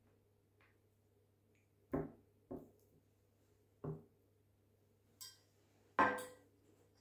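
A metal fork knocking against white ceramic dishes, with three sharp clinks in the second to fourth seconds. The loudest clatter, with a short ring, comes about six seconds in as the ceramic bowl is set down.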